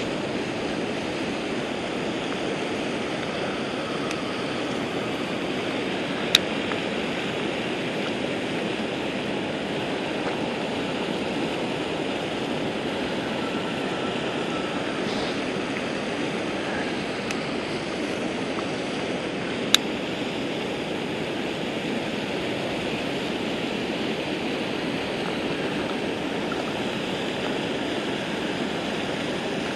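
Steady rush of water pouring over a low-head dam spillway and churning below it. Two short sharp clicks cut through it, about six seconds in and again near twenty seconds.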